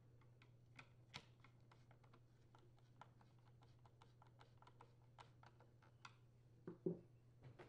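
Faint, irregular small clicks of a screwdriver turning screws into a Homelite chainsaw's recoil starter housing, with two louder knocks near the end.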